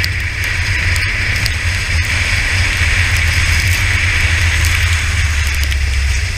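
Go-kart engine running at speed, heard from the onboard camera, under a steady hiss of spray and wind and a scattered crackle of raindrops hitting the camera. The engine note drops lower about five seconds in.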